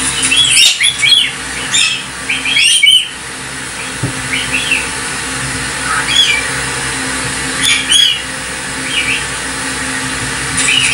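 Galah (rose-breasted cockatoo) calling: a quick run of short calls in the first three seconds, then single calls every second or two. A steady low hum runs underneath.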